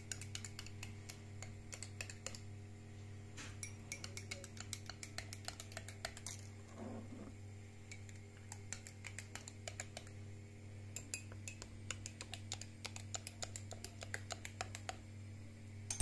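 Metal spoon stirring in a vessel, clinking quickly against its side in long runs of rapid clicks with a couple of short pauses, over a steady low hum.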